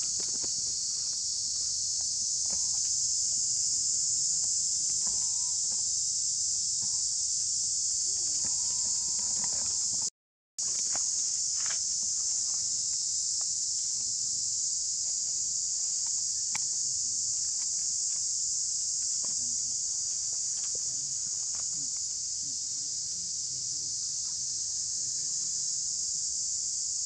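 A steady, loud, high-pitched drone of insects, with faint brief squeaks from young monkeys wrestling on dry leaves. The sound cuts out completely for about half a second, about ten seconds in.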